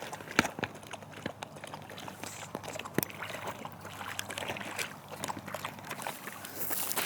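A dog splashing about in shallow river water, with irregular sloshes and two sharper splashes, about half a second in and about three seconds in.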